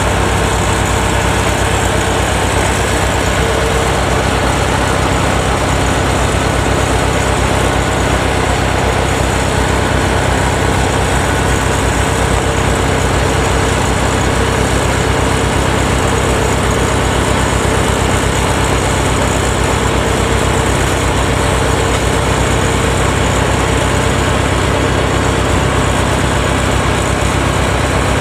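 Kubota DC-93 combine harvester's diesel engine running steadily at an even pitch as the machine crawls forward on its tracks.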